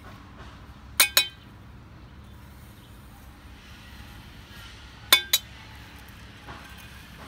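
A small metal hand tool clinking twice in quick succession, then again about four seconds later, each tap sharp and ringing briefly.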